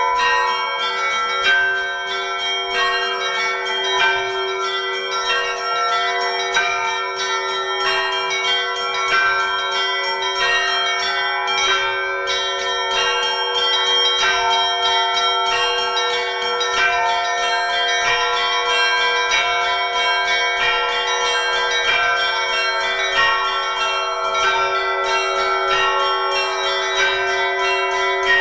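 Russian Orthodox church bells from a belfry of seven, the largest 140 kg, ringing a continuous peal. Rapid, overlapping strikes on the smaller bells ring over a steady lower tone, all merging into one unbroken sound.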